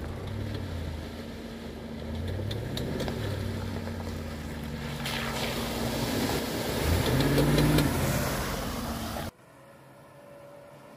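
Off-road 4x4 vehicle's engine running under load, its pitch rising and falling twice as it revs, loudest about eight seconds in, with scattered clicks. It cuts off suddenly about nine seconds in, leaving a faint hiss.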